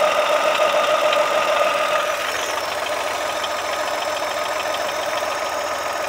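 Chevrolet Onix Plus three-cylinder engine running at idle, with a steady whine over a fast, even ticking. The owner's complaint was an engine noise like this, which the dealer eventually traced to the alternator belt tensioner.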